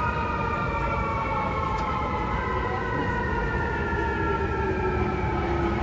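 FDNY fire truck's siren wailing, a held tone that slowly falls in pitch, over a steady low rumble of street traffic.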